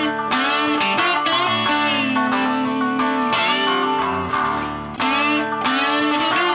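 Background music: an electric guitar track with a steady rhythm.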